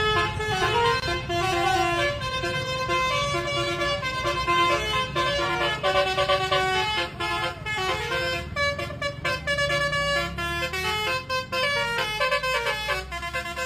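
Bus-mounted basuri 'telolet' multi-tone air horn playing a fast tune of changing horn notes, over a steady low engine rumble.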